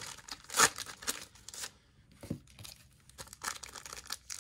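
Trading cards and a pack wrapper being handled: the wrapper crinkling and tearing as the pack is opened and cards are flicked through, in a few short sharp rustles with a quieter stretch in the middle.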